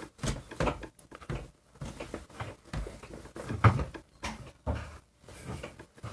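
A new desk chair squeaking and creaking as someone shifts in it: a string of irregular creaks and knocks, the loudest a little past halfway.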